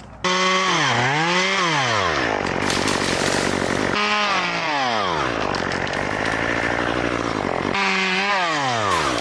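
Chainsaw running and cutting wood, its engine pitch repeatedly dropping and rising again as it loads and revs, heard in several short clips joined by abrupt cuts.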